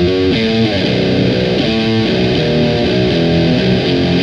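Electric guitar, a Fender Jazzmaster on its bridge pickup tuned to C standard, played through distortion pedals: a run of picked notes and chords with a gritty, saturated tone.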